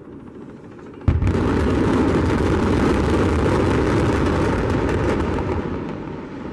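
Explosive demolition charges bringing down a high-rise hotel: a sudden sharp blast about a second in, then a rapid string of cracks over a deep rumble as the building comes down, fading near the end.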